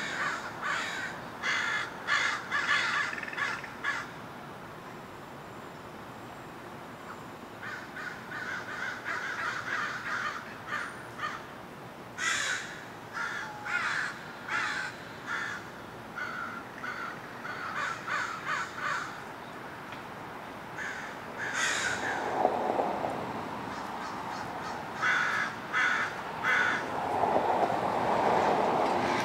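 American crows cawing from treetops, in repeated bouts of short caws separated by pauses. A low rushing sound swells twice in the second half.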